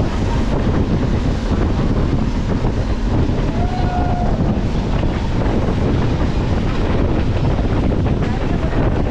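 Steady running rumble of a moving passenger train, with wind buffeting the microphone. A brief faint tone sounds about four seconds in.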